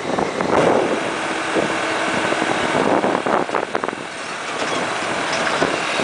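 Road tourist train driving along, heard from an open carriage: a steady engine drone under road and tyre noise.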